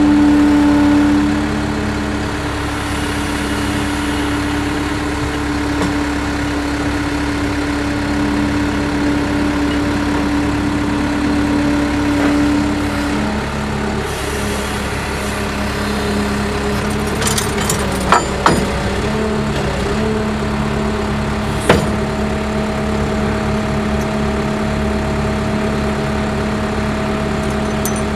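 Skid steer engine running steadily. A humming tone over it stops about halfway through, and three sharp knocks come about two-thirds of the way in.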